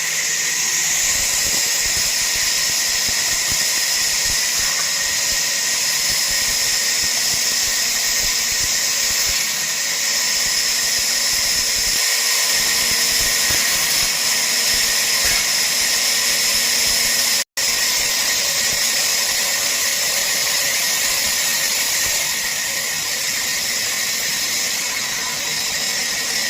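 A woodworking power machine, such as a saw, running steadily with a high, hissing whine as it cuts wood. The sound drops out for an instant about two-thirds of the way through.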